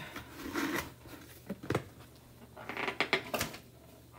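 A plastic squeegee multi-tool scraping excess chalk paste and being wiped clean: two short stretches of scraping and rubbing, with a few sharp clicks between them.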